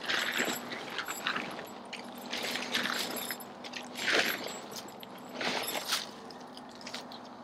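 Irregular rustling and crinkling handling noises from pitching a tent, coming in short bursts every second or two.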